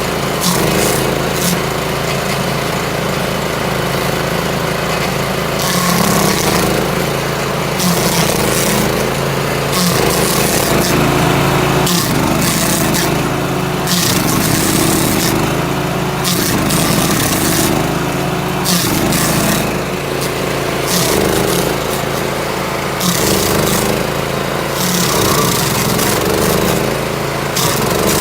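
Victory GSF-2500 self-propelled stump grinder running and grinding into a stump. Its engine note dips and recovers under the load, with a hiss of grinding that comes and goes every second or two.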